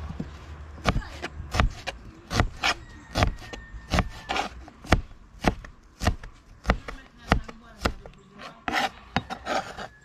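Kitchen knife slicing a red onion on a plastic cutting board: a string of sharp, irregular knocks of the blade on the board, about two a second.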